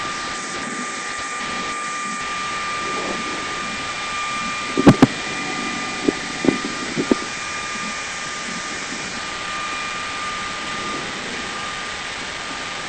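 Steady whirring hiss with a constant high whine inside the cockpit of a stationary Peugeot 206 rally car, broken by a few short knocks, the loudest about five seconds in.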